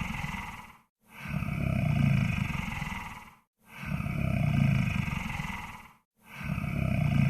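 Monster snore sound effect: deep snoring breaths repeating about every two and a half seconds, each swelling and then fading out before a brief silent gap.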